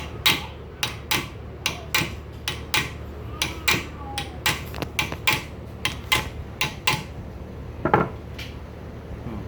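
Hammer tapping on metal, about two to three quick light strikes a second, driving a part along a shaft in a garden tractor's rear end, with one heavier strike near the end. A fan hums low underneath.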